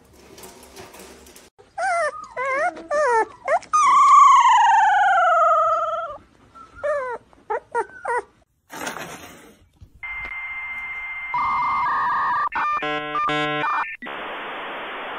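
An animal gives a run of short, wavering calls and then one long call falling in pitch. Later comes a dial-up modem handshake sound effect: a steady high tone, warbling two-tone chirps, then a hiss of static.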